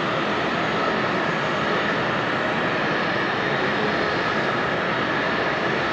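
Jet airliner engines running: a steady rush of noise with a faint whine held at one pitch.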